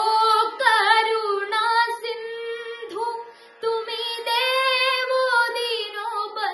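A boy singing a devotional bhajan solo, drawing one line out in long, ornamented held notes, with a short break for breath about three and a half seconds in.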